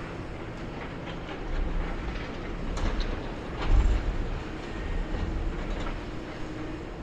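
Demolition-site noise: wind buffeting the microphone in low rumbling gusts, the strongest about four seconds in, with a few scattered knocks and clanks from grab machines clearing debris.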